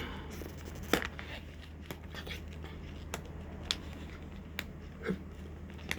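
Scattered sharp clicks and light rustles of a plastic convenience-store food container and its wrapping being handled and opened, with a steady low hum underneath.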